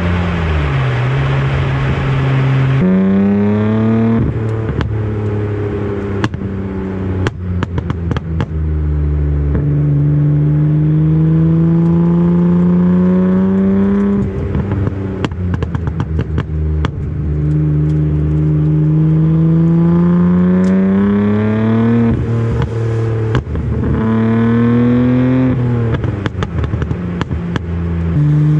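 Nissan Skyline R34 GT-R's RB26DETT twin-turbo straight-six on a custom 3-inch exhaust, driven hard. Its note rises through the revs several times, each climb lasting a few seconds and breaking off as the throttle is lifted or a gear is changed. Bursts of sharp clicking and crackling come in the off-throttle stretches.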